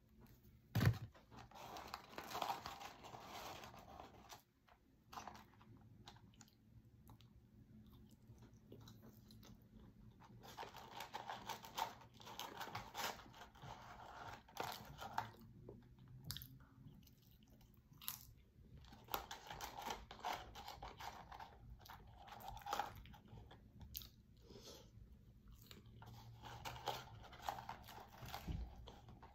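A person chewing McDonald's fries with faint crunching, close to the microphone, in irregular bouts. A single thump about a second in.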